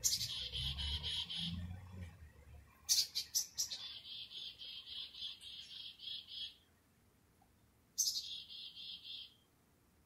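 Black-capped chickadees giving their chick-a-dee call three times, as they approach their night roost. Each call is a few sharp, high opening notes followed by a run of buzzy, evenly repeated 'dee' notes, and the middle call is the longest.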